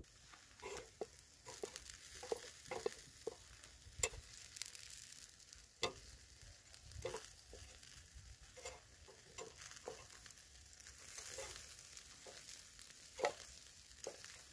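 Food sizzling in a pan, with a utensil clicking and scraping against it at irregular moments over a faint steady hiss.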